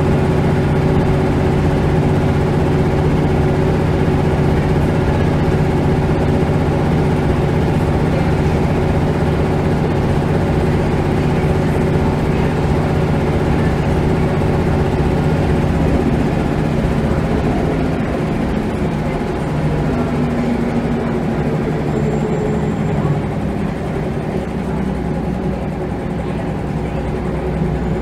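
Scania L94UB bus engine running loudly, heard from inside the saloon as a steady, deep engine note. A little past halfway the note eases and drops lower.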